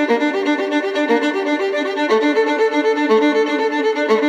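Instrumental background music: a melody of quick, short notes over a steady accompaniment.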